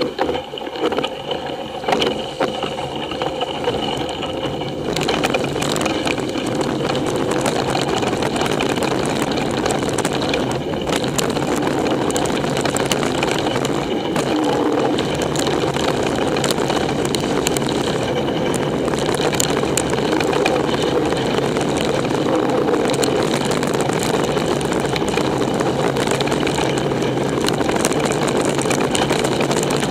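Mountain bike riding fast downhill on a wet dirt trail, heard from a camera mounted on the bike or rider: a steady rush of wind and tyre noise with frequent clicks and rattles over bumps.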